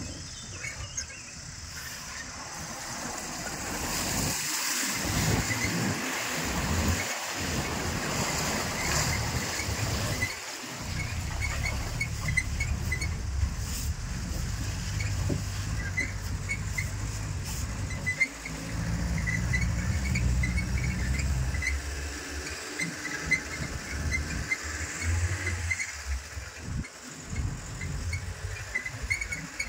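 Safari vehicle driving along a rough dirt forest track: the engine runs with its note shifting as it speeds up and slows, over tyre and body noise, with frequent short high squeaks or chirps.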